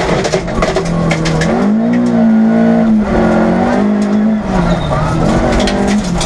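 Škoda Favorit 136 L rally car's 1.3-litre four-cylinder engine running hard, heard from inside the cabin, its pitch rising and falling with throttle and gear changes. Sharp clicks and knocks are heard over it.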